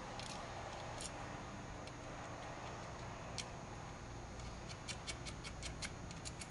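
Light metallic clicks of cap screws, nuts and washers being fastened by hand to an air spring control board's steel brackets: a few scattered ticks, then a quick run of about five clicks a second near the end.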